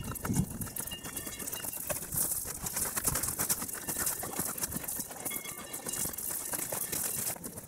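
Footsteps crunching and scuffing on a loose gravel path while walking downhill, with the rustle and knock of a handheld camera and pack moving with each step.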